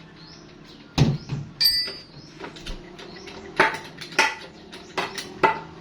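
Metal knocking and clanking: about six sharp strikes, one early on ringing briefly with a clear metallic tone.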